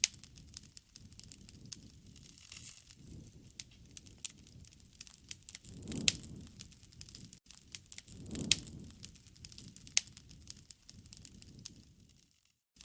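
Wood fire crackling: frequent sharp pops and snaps of burning wood over a low rustle of flames that swells up a few times. It cuts out briefly just before the end.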